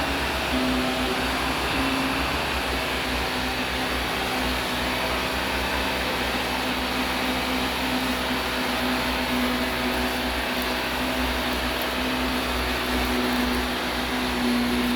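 Vacuum cleaner running steadily: an even rushing of air over a steady low motor hum, with no pauses.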